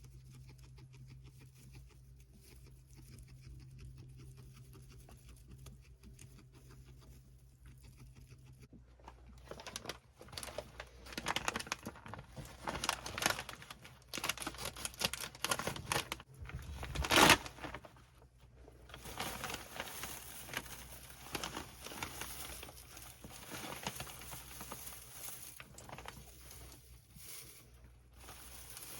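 Guinea pigs moving about their cage among new toys and bedding, making rustling and crinkling in irregular bursts. It starts about a third of the way in and is loudest just past the middle.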